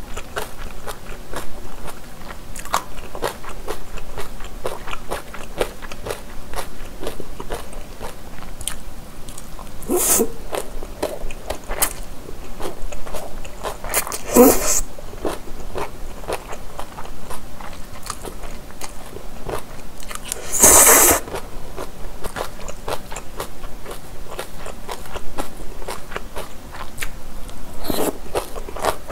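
Close-miked chewing of japchae, sweet-potato glass noodles with vegetables: a steady run of small wet mouth clicks, with four louder noodle slurps spread through, the loudest about two-thirds of the way in.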